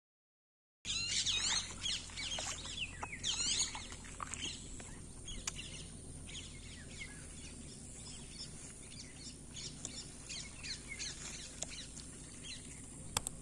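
Small birds chirping: a dense run of quick sweeping calls about a second in, thinning to scattered chirps, with two sharp clicks near the end.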